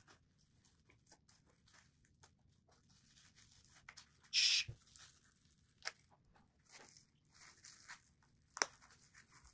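Bubble wrap on a parcel being picked at and pulled off by hand: faint crinkling and scratching, a short tearing rip about four and a half seconds in, and a sharp click near the end.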